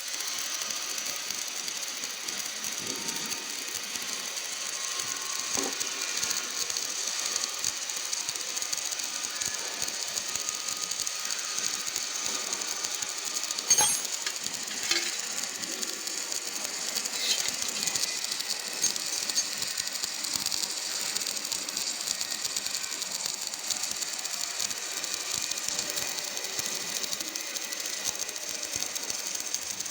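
Submerged arc welding machine running: a steady high-pitched crackling hiss with fine rapid clicking, and one louder click about halfway through.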